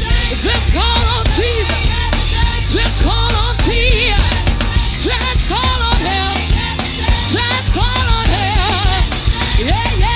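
Band music with a drum kit, heavy bass and a voice singing a melody, in the style of a gospel praise band.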